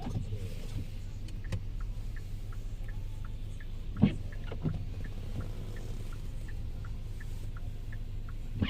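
Car cabin noise while driving slowly: a steady low hum of engine and road, with one sharp knock about four seconds in and a faint regular ticking through the second half.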